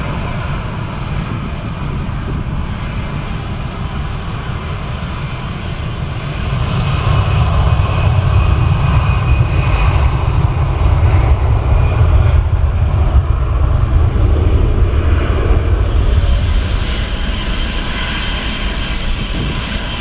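Boeing 777-300ER's GE90 jet engines running at taxi power, a low rumble with a faint whine, growing louder from about seven seconds in and easing a little near the end.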